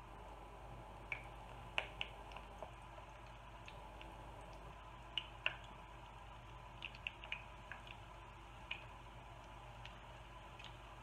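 Breaded chicken tenders shallow-frying in a stainless steel pan of oil that is not quite hot yet: a faint steady sizzle with scattered sharp pops and clicks, several in quick runs, as more pieces are laid in with tongs.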